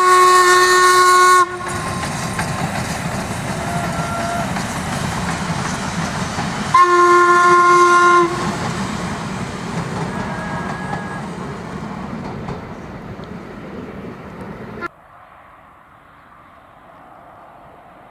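Steam locomotive whistle blown twice, each blast about a second and a half long and some seven seconds apart, over the rumble and clatter of the train rolling past; the running noise then fades as the coaches go by. About fifteen seconds in it cuts off suddenly to a much quieter steady background.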